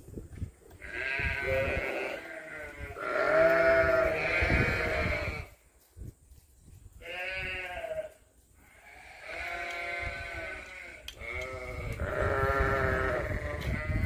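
Sheep bleating: about five long, quavering bleats in a row, with short pauses between them.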